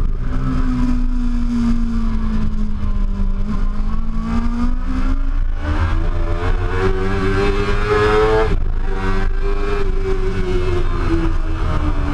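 Suzuki GSX-R750 K2's inline-four engine running at speed under the rider. The revs sag slightly, then climb for a few seconds, drop sharply about eight and a half seconds in, and ease down again near the end.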